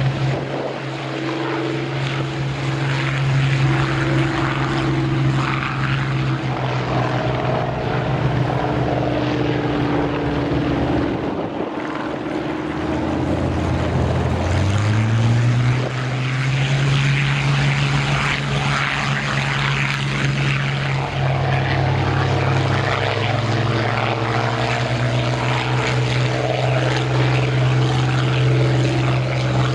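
The Rolls-Royce Merlin V12 of a taxiing Hawker Hurricane fighter runs at a steady, loud engine note. Shortly before halfway the note drops, then it revs back up and holds steady again.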